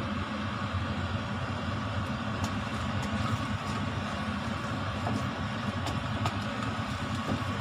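Wooden spoon stirring thick sticky glutinous rice in a stainless steel pot, with a few faint knocks against the pot, over a steady low rumble.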